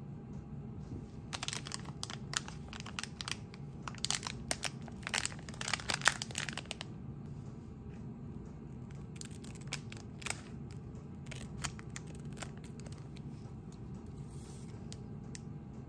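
Plastic packaging bag of a new SKF bearing crinkling as it is handled, a dense run of crackles for several seconds, then a few scattered sharper clicks as scissors cut the bag open.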